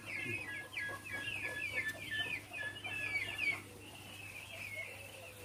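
A pen of poultry peeping and chirping: a quick run of short, high chirps for about three and a half seconds, then thinning to a few scattered calls.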